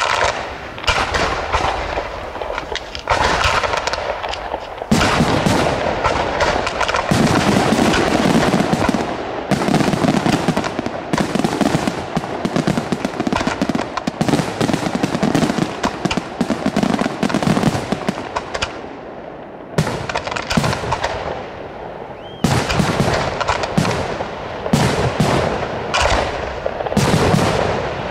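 Fireworks display: a dense, near-continuous barrage of aerial shell bursts and rapid crackling reports, easing briefly about twenty seconds in before building again.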